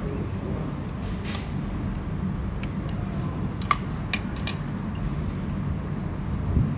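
Steady low background rumble, with a few sharp clinks of tableware in the middle and a single thump near the end.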